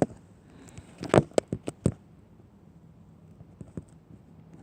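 A quick run of about five sharp knocks within a second, starting about a second in, then only faint room noise.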